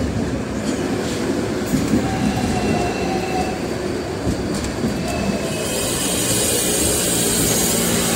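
Hong Kong double-decker electric tram running along its street tracks, heard from the upper deck: a steady rumble of the wheels on the rails, with a faint squeal of the wheels around two to three seconds in and a hiss growing louder after about five seconds.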